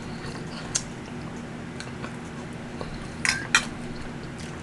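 Metal fork cutting into meatloaf and clicking against the plate, with a few sharp clicks, two of them close together about three seconds in.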